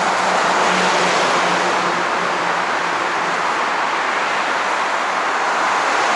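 Road traffic noise from cars passing on a city street: a steady hiss of tyres, with a faint engine hum that fades out about halfway through.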